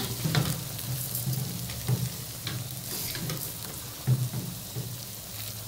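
Cardamom-tempered oil sizzling under a layer of rice in a hot pot, with scattered light clicks and taps as sugar is sprinkled over the rice.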